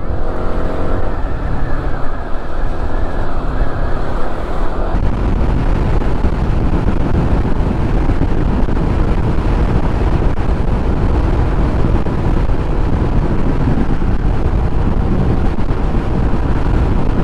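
Motorcycle on the move: steady engine and road noise with wind rushing over the microphone. A faint steady tone underneath fades out about five seconds in.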